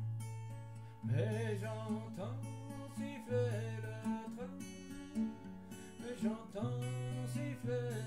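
Music: acoustic guitar playing, with a wavering melody line over it.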